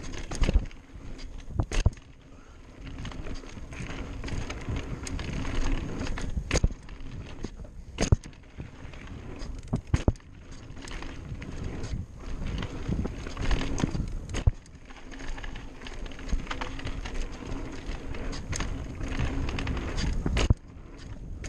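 Mountain bike riding fast down a dirt forest trail: steady tyre rumble on dirt, broken by frequent sharp knocks and rattles as the bike hits bumps.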